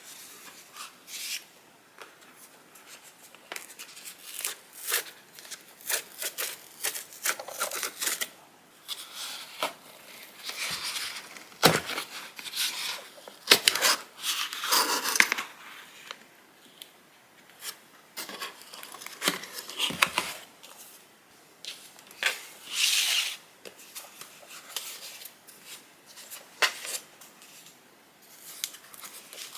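Apple Watch box packaging being opened by hand: paper and cardboard tearing and rubbing, with irregular taps and short scrapes, busiest about halfway through.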